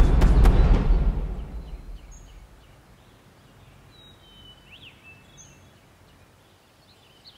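Music fading out over the first two seconds, leaving faint outdoor ambience with a few short, high bird chirps scattered through the rest.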